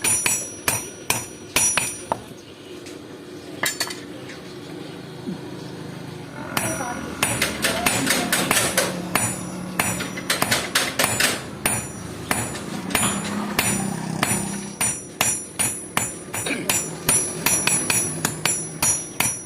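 Hand hammer blows on hot steel over an anvil as a file is forged into a knife blade: quick, regular strikes, about two to three a second, each with a bright metallic ring. The hammering pauses for a few seconds about two seconds in, then resumes steadily.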